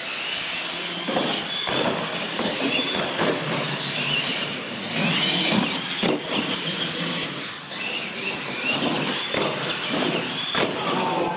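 Two radio-controlled monster trucks racing flat out: the motors and gears whine, rising and falling with the throttle, over tyre noise on a concrete floor. Several knocks come as the trucks hit and land off launch ramps.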